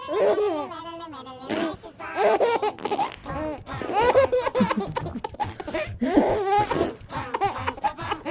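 Baby laughing in repeated bursts of giggles, breaking off briefly and starting again several times.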